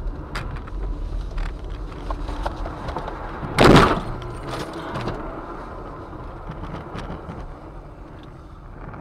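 Car in motion on a snowy, rutted road, with road rumble and small knocks and rattles, then a single loud crash about three and a half seconds in, consistent with the car hitting something or ploughing off the road. Afterwards the road noise falls away as the car slows.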